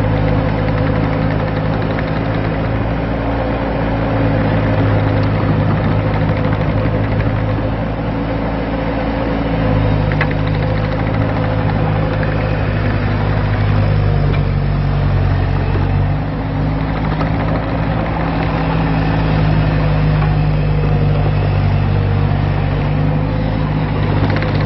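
Kubota V2403 four-cylinder diesel engine of a Bobcat T190 tracked skid steer loader running steadily, its speed rising and falling slightly.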